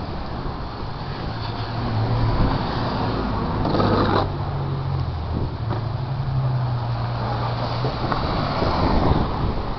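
A motor vehicle's engine running on the snowy street, a steady low hum, over a constant rush of wind and street noise, with a brief louder rush about four seconds in.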